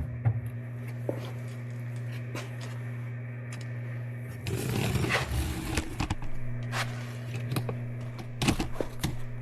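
Hands-on work fitting a car's plastic rear bumper: scattered clicks and knocks, and a stretch of scraping and rustling about halfway through, over a steady low hum.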